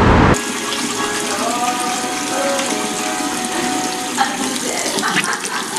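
A steady rush of running water, like a tap running, that starts abruptly about a third of a second in. A few faint wavering tones sound through it.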